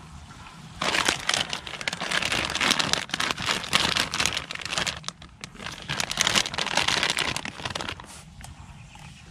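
Plastic snack bag crinkling as hands open it and rummage inside. It starts about a second in and goes on in two stretches, with a brief lull near the middle.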